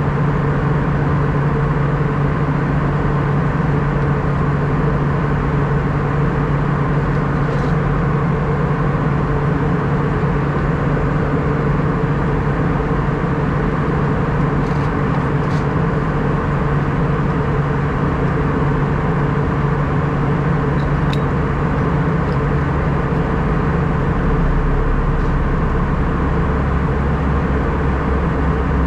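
Steady cabin drone inside an Airbus A319 airliner, the hum of its engines and airflow through the fuselage, with a few faint clicks. The low rumble deepens slightly near the end.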